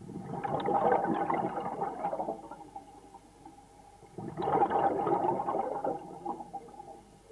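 Scuba air bubbles bubbling out underwater in two bursts about four seconds apart, over a faint steady hum.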